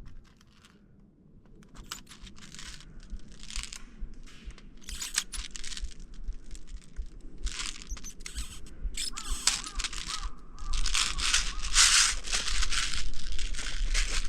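Irregular rustling and crunching from a player moving on foot, sparse at first and growing louder and denser from about ten seconds in.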